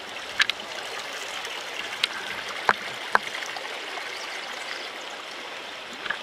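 Shallow river water running steadily over stones, with a few short sharp knocks and splashes as a plastic ayu live-bait box (hikifune) is handled and lifted out of the water, water pouring from it.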